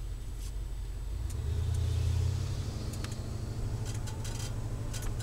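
Low exhaust drone of a 351 Windsor V8 through a Flowmaster Delta Flow 50 series muffler, heard inside the van's cabin; it swells louder about a second and a half in, then settles steady. Light clicks and rattles come in during the second half.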